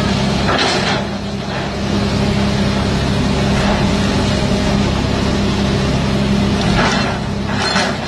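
Excavator's diesel engine running steadily, with two short bursts of hissing noise, about a second in and again near the end.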